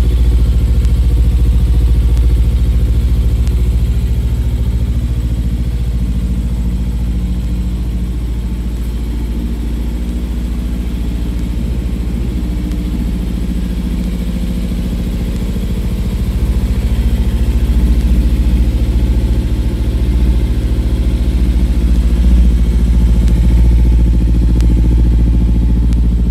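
2015 Kawasaki Ninja 300's parallel-twin engine idling steadily through a Yoshimura exhaust, warming up.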